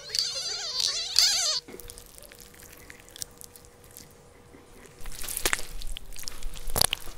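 A short warbling, wavering sound at the start, then a quiet stretch with a faint steady hum. In the last two seconds a hand rubs the plush fur of a teddy bear: a brushing rustle with small crackles.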